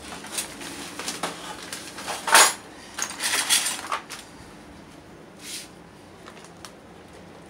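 Metal clinks and knocks as a dial-indicator stand is handled and bumped against the machine's metal parts: a cluster of short clattery strikes in the first four seconds, the loudest about two and a half seconds in, then a few faint ticks.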